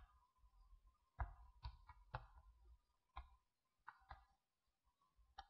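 Near silence with about eight faint, short clicks scattered unevenly through it.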